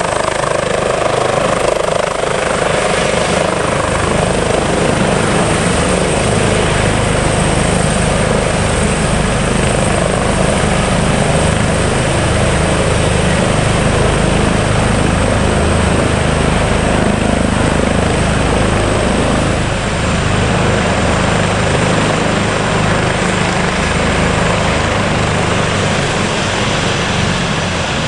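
Airbus H145 (BK117 D2) rescue helicopter running loud and close, with a fast low rotor beat under a high turbine whine. The whine dips slightly about twenty seconds in.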